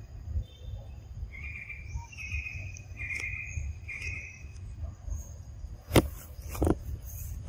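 Forest insects droning in a steady high buzz, with four short buzzy calls in the first half. Two loud sharp clicks come about six seconds in, over a low rumble.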